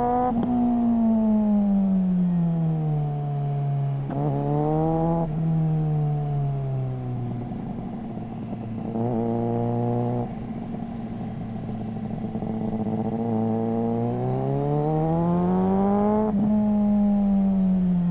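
Suzuki GSR600's inline-four engine through a GPR Ghost aftermarket exhaust, revving up and easing off several times while riding. The pitch climbs to a peak and breaks off about half a second in, then falls away. It climbs again briefly around four to five seconds, holds steadier in the middle, and climbs hard again to another sharp break a couple of seconds before the end.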